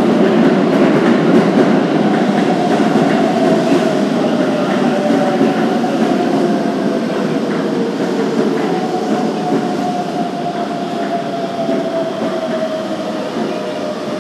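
Keikyu electric train slowing down. The motor whine falls slowly in pitch and the rumble of the running gear fades.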